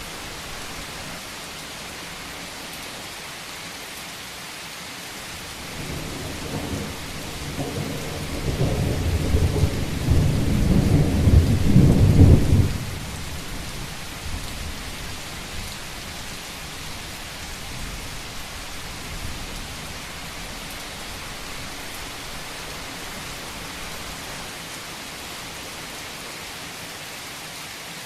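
Steady rain falling on a roof, with a long roll of thunder that builds from about six seconds in, is loudest about twelve seconds in and then drops away suddenly.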